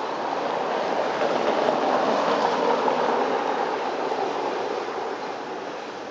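CSR SDD7 diesel-electric locomotive hauling a passenger train on its approach, a steady running noise that grows louder over the first two seconds and then eases off a little.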